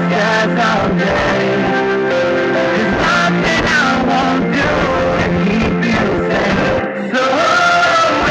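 Rock song with guitar and a melody line. The music dips briefly near the end, then comes back in slightly louder.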